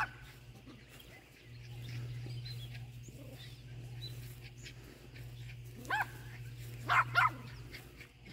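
Yorkshire terrier barking in short, sharp yaps: once at the start, once about six seconds in, then twice in quick succession.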